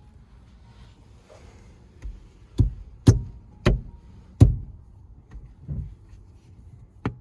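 Sharp clunks from a Hyundai Veloster N's gear lever and newly fitted shift knob: four loud knocks about half a second apart, then a couple of softer ones near the end.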